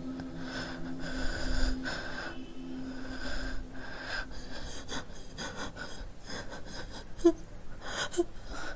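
A frightened woman breathing heavily: shaky gasping breaths in and out, coming shorter and quicker in the second half, with a few brief catches in the voice near the end.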